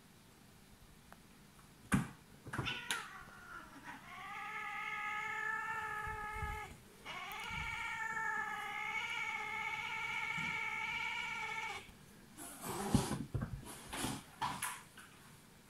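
Cats fighting. A few sharp knocks of a scuffle, then a long drawn-out yowl held for about eight seconds with one short break, then more scuffling and knocks as the cats tussle.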